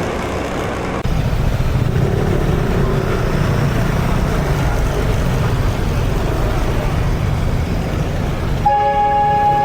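Street traffic with a steady low engine rumble; near the end a vehicle horn honks once for about a second.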